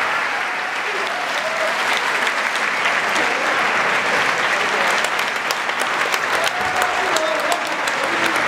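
Theatre audience applauding at a curtain call, a dense wash of clapping in which single claps stand out more in the second half. A few short cheers rise above it.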